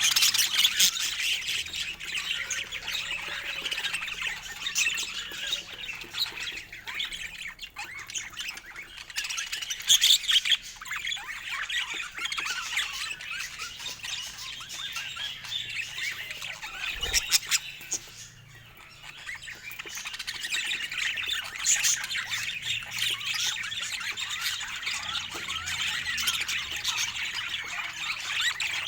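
A group of budgerigars chattering and chirping continuously in a dense, rapid stream, with a brief lull about two thirds of the way through.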